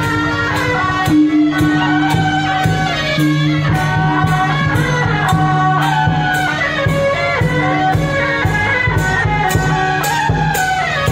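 Traditional temple-procession music: a reedy wind melody over a held low tone, with percussion striking about twice a second.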